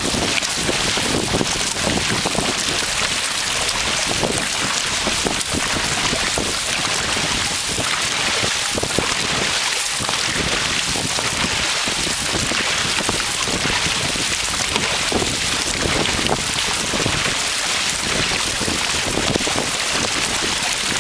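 Steady rush and splash of water from dragon boat paddles and hulls moving at speed, with wind noise on the microphone.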